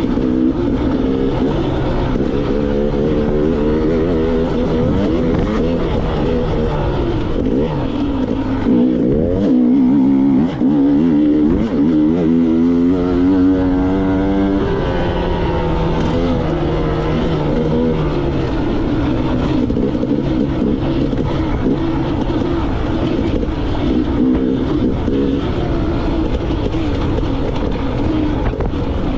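KTM two-stroke enduro motorcycle engine being ridden hard, its revs rising and falling continuously, with a louder stretch of climbing revs about halfway through.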